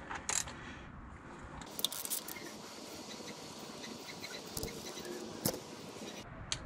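Socket ratchet working the valve-body bolts of a TH400 transmission: scattered metal clicks and clinks, with a short run of clicks about two seconds in.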